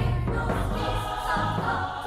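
Background music with sung voices over sustained chords, without a strong beat.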